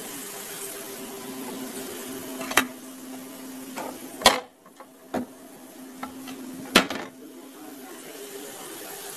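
Bread cubes frying in hot oil in an iron wok with a steady sizzle, broken by a metal ladle knocking sharply against the cookware four times, the loudest knocks about four and seven seconds in.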